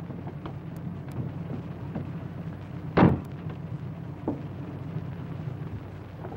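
A car door slams shut once, sharply, about three seconds in, with a smaller click a second later, over a steady low hum.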